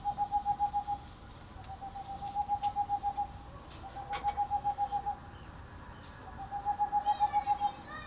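Tengmalm's owl (boreal owl) singing: quick runs of hollow hoots all on one pitch, four runs in a row, each about a second long, some starting softer and swelling.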